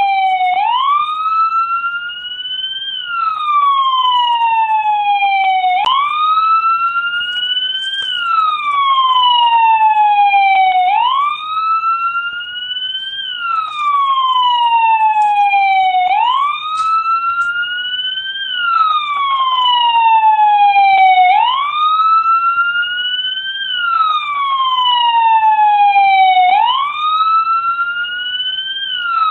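American police car siren sounding its wail: a slow rise and fall in pitch, about one full cycle every five seconds.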